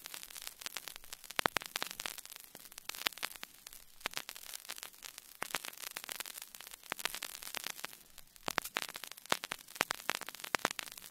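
Crackling static: irregular clicks and pops over a faint hiss, with no music or voice.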